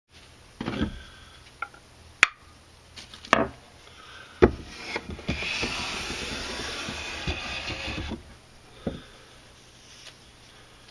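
A few sharp wooden knocks and taps, then a Japanese hand plane (kanna) taking one long, smooth stroke of about three seconds along a yellow cedar board, followed by one more knock.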